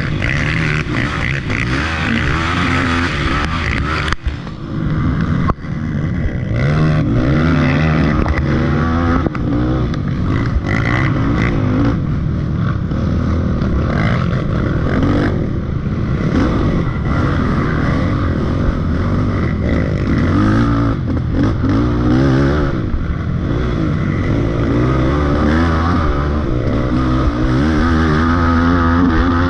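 Dirt bike engine running hard under a rider, its pitch rising and falling continually as the throttle is opened and shut over rough trail. It dips briefly twice a few seconds in.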